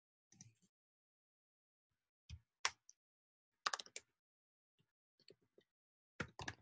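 Near silence broken by a handful of short, sharp clicks and taps, a few coming in quick clusters.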